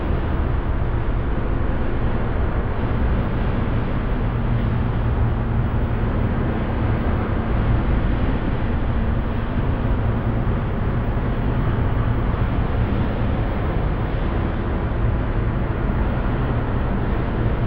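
Dark ambient drone music: a steady, dense low rumble with no beat or melody.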